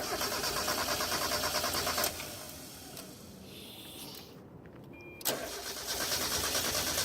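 Mazda Miata's four-cylinder engine being cranked on the starter in two tries, about two seconds each with a pause between, not catching. This is a hard restart after a Seafoam treatment.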